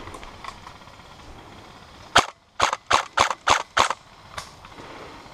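Airsoft gun firing six sharp shots in quick succession about halfway in: one crack, a short pause, then five more at about four a second.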